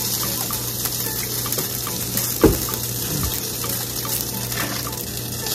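Butter and heavy cream heating in a hot pan on medium-high heat, giving a steady sizzling hiss. A single knock comes about halfway through.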